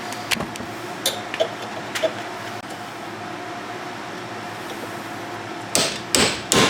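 A few light metal clicks, then three sharp hammer blows on metal in quick succession near the end, over a steady background noise; the hammer is being used on the tractor's shifter parts to work the broken pin loose.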